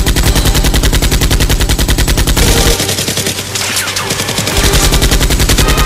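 Automatic-gunfire sound effect dubbed over Nerf blasters: two long rapid-fire bursts of about a dozen shots a second, with a weaker stretch of fire between them from a little before the middle.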